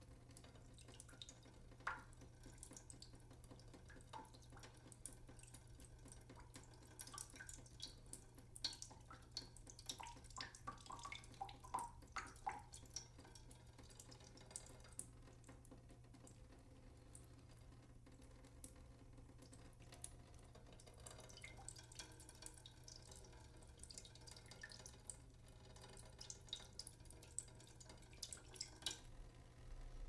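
Water dripping from a leak: faint, irregular drops falling one after another, sometimes in quick clusters, over a steady low hum.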